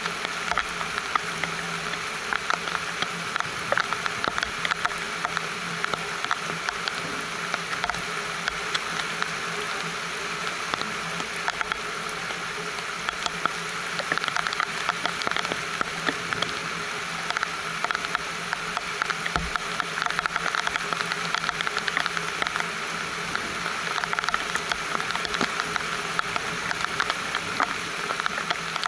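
Steady rain: a dense patter of drops on the greenhouse covering and the potted plants over a constant hiss, with a faint steady tone running underneath.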